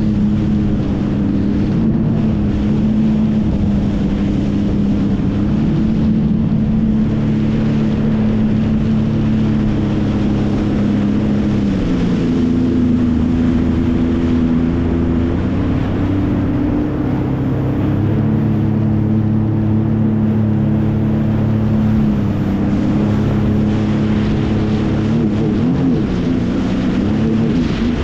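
Jet ski engine running steadily at cruising speed, with water spray rushing past the hull. The engine pitch shifts a little about twelve seconds in and wavers near the end.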